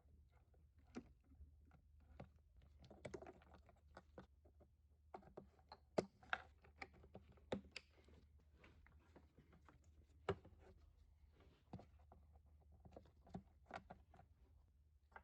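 Faint, irregular clicks and light knocks, a few sharper than the rest, over a low steady hum.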